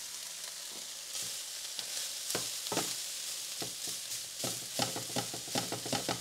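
Ground chicken sizzling in a hot pan, with a wooden spoon scraping and knocking against the pan as the meat is stirred and broken up. The spoon strokes start after about two seconds and come quickly in the second half.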